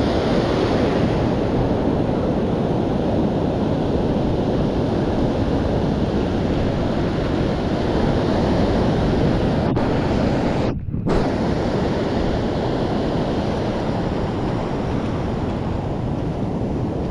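Steady noise of surf breaking and washing over the shallows, with wind buffeting the microphone. The sound drops out for a moment about eleven seconds in.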